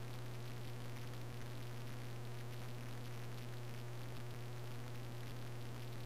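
Steady low hum with an even hiss underneath: room tone with no other sound.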